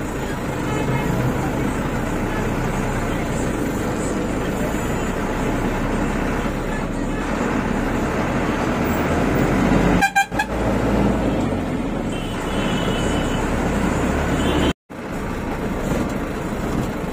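Van engine and road rumble heard from inside the cab while creeping through congested street traffic, with car and bus horns tooting. The sound cuts out for an instant about two-thirds of the way through.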